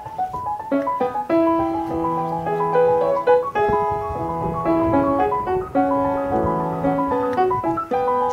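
Background piano music: a flowing melody of many short notes over repeated held low notes.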